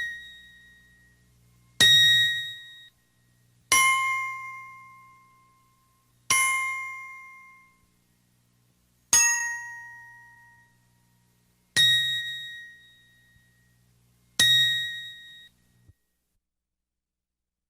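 A bell struck six times, single dings about two to three seconds apart, each a bright ring that fades out over a second or two. The second, third and fifth dings are pitched lower than the rest.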